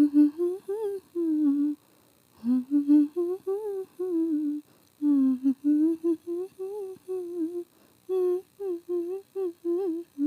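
A woman humming a song: a tuneful melody in short phrases with brief pauses between them.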